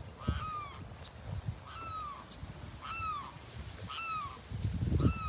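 A bird gives short, downward-arching caw calls, five of them about a second apart. Wind rumbles on the microphone near the end.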